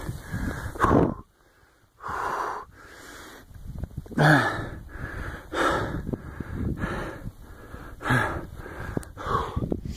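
Heavy, labored breathing of a man climbing a steep mountain slope: loud wheezing gasps about every second and a half, with a short pause about a second in. He is out of breath from the steep climb at high altitude.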